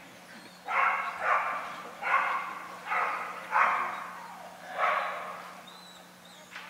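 A stock dog barks six times in about four seconds, each bark echoing off the large indoor arena.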